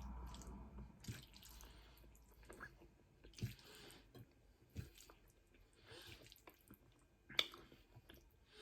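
Faint wet mouth sounds of eating spaghetti bolognaise: a few scattered chewing smacks and clicks, the sharpest near the end.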